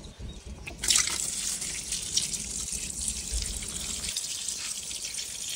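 Water pouring steadily into a flower pot, flooding its soil, starting about a second in.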